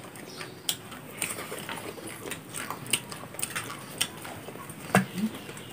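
Chewing and lip smacking, close to the microphone, as rice and side dishes are eaten by hand: many small irregular mouth clicks, with a brief voice sound about five seconds in.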